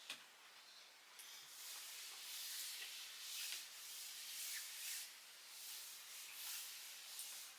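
A cloth rubbing over the casing of a Razer Blade gaming laptop in repeated wiping strokes. Each stroke makes a soft, hissing swell, roughly one a second.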